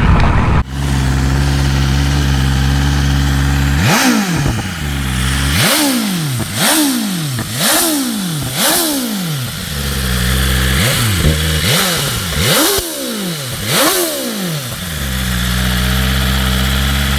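Motorcycle engine idling, then revved in quick blips about eight times, roughly a second apart, each rising sharply in pitch and falling back, before settling back to a steady idle.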